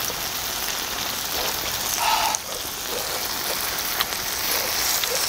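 Pork sizzling in fat on a large cast-iron cauldron-lid grill: a steady crackling hiss with a few faint clicks. A brief louder noise comes about two seconds in.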